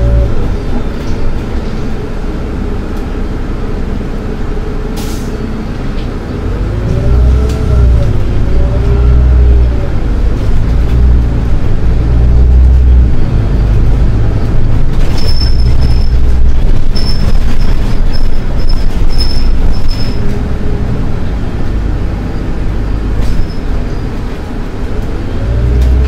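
Solaris Urbino 12 IV city bus under way: a steady low rumble, with a whine that rises and falls in pitch several times as the bus speeds up and slows. A run of short high beeps comes in past the middle.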